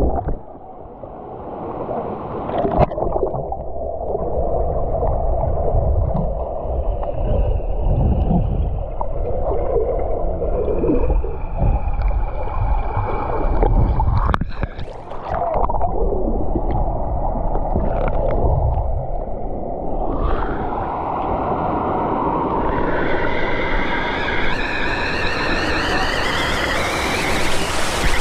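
Pool water heard from underwater: muffled rushing and gurgling with faint wavering tones. Near the end the microphone comes up beside a waterfall, and the noise turns into a bright, hissing splash of falling water.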